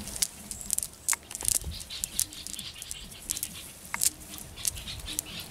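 Irregular pattering and sharp ticking as small fish flap on the grass and against the mesh of a cast net being lifted off them.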